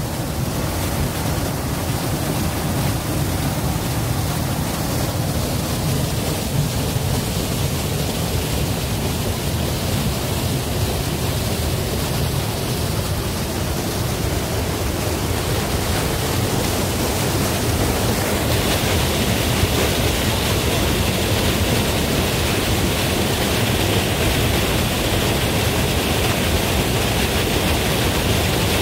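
Waterfall: a loud, steady rush of falling water. About two-thirds of the way through it turns brighter and hissier.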